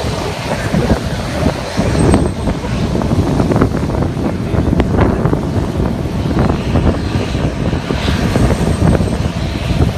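Wind buffeting the microphone in a fluctuating low rumble, over the steady running of a twin-turboprop airliner's engines.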